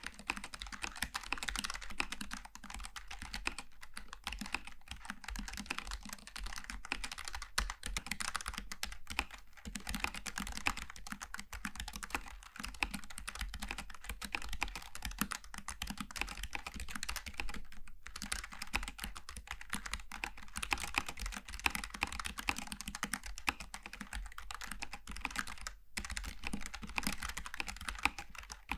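Continuous fast typing on a Logitech G915 TKL keyboard with low-profile tactile switches: a dense, steady stream of key clicks, broken by two brief pauses, one past halfway and one near the end.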